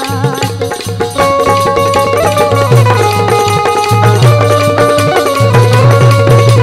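Instrumental interlude of a Bundeli folk song: a melody instrument playing held notes that step up and down over a steady drum rhythm, getting louder about a second in.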